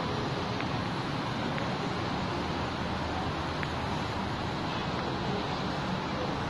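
Steady, continuous noise of distant road traffic, an even hum with no single vehicle standing out.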